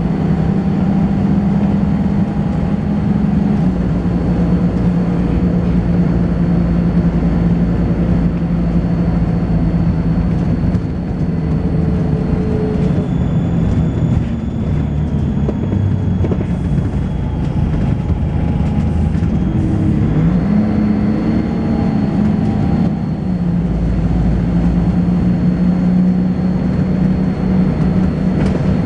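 Volvo B10BLE bus engine running under way with lots of thrash, a thin, steady high-pitched whine above it. The whine drops in pitch for several seconds partway through, then returns, and the engine note shifts and climbs about two-thirds of the way in as the ZF automatic gearbox works through the gears.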